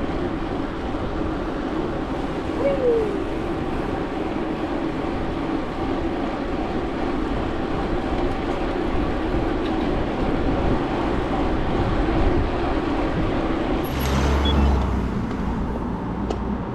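Steady rush of road and wind noise from a bicycle ridden along a road with traffic, with a brief deeper surge and a short high squeak about fourteen seconds in.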